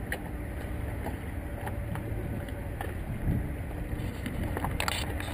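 Outdoor marina ambience: wind rumbling on the microphone under a steady low hum, with scattered light clicks and a sharper clank near the end.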